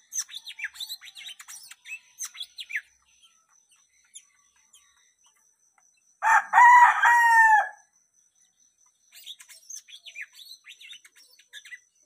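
Caged cucak mini songbird twittering in quick, high chirps. A rooster crows once, loud, in the middle, and the twittering picks up again near the end.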